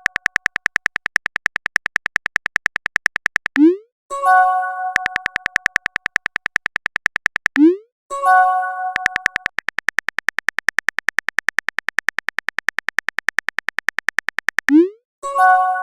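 Phone texting sound effects: long runs of rapid, evenly spaced keyboard typing clicks, broken three times by a short rising pop and a bright chime as a message arrives.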